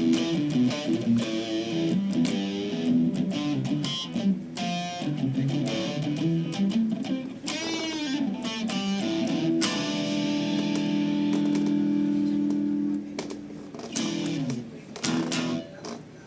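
Electric guitar played through a Boss SD-2 Dual Overdrive pedal: a run of picked notes and chords, then one chord held for about three seconds, with a few more short chords before the playing stops near the end.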